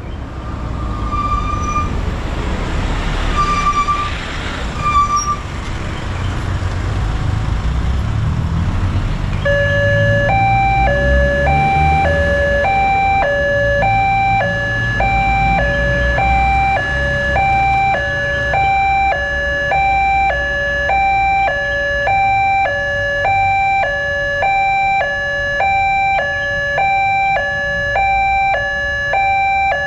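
Railway level-crossing alarm sounding an evenly alternating two-note electronic chime, about two notes a second, from about a third of the way in, warning of an approaching train as the barrier lowers. Steady road-traffic rumble underneath, with three short high beeps near the start.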